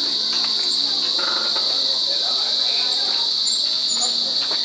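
Evening insect chorus: a steady, unbroken high-pitched trilling, with a few short higher chirps in the second half.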